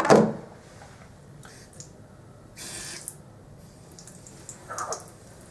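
A clunk as things are set down on a bathroom counter, then a short hiss about halfway through, with the faucet being reached for and turned on.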